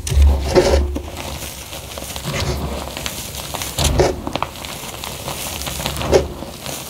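Hands crushing and crumbling soft gym chalk blocks mixed with drinking chocolate powder in a bamboo bowl: irregular dry crunching and crumbling. There are louder crunches about half a second in, at four seconds and near six seconds.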